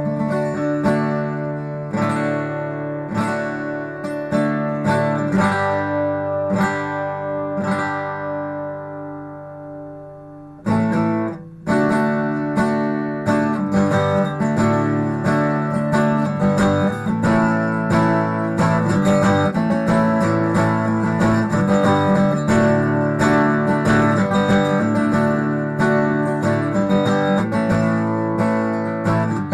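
Solo strummed acoustic string instrument, a small guitar-type instrument, playing chords. The chords are left to ring and die away for about ten seconds, then after a brief break steady rhythmic strumming resumes.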